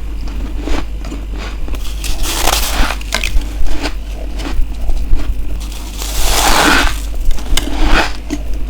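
Ice being bitten and crunched close to the microphone: a run of sharp, crackly crunches, with a longer grinding crunch about six seconds in.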